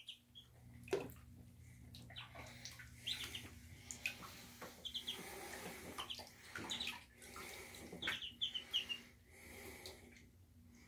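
Muscovy ducklings paddling and dabbling in shallow water in a tub: faint splashing and water movement, with short high peeps here and there and a small cluster of them about eight seconds in.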